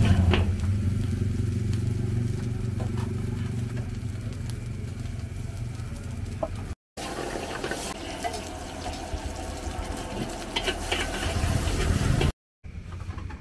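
Stir-frying in a wok over a gas burner: food sizzling while a metal spatula scrapes and clicks against the wok, over a steady low hum. The sound cuts out briefly twice, about seven seconds in and near the end.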